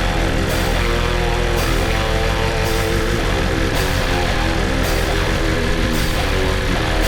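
Heavy rock backing music with guitar and a steady beat, with cymbal hits about once a second and no singing.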